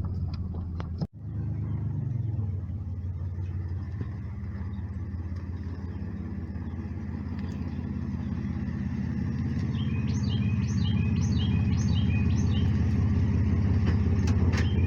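Pickup truck driving, heard from inside the cab: a steady low engine and road rumble that grows slightly louder as it goes. A run of short, quickly repeated high chirps sounds over it for a few seconds near the end.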